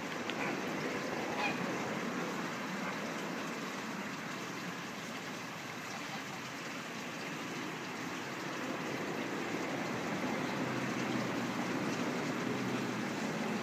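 Steady rushing background noise, with no clear call from the swan or the geese.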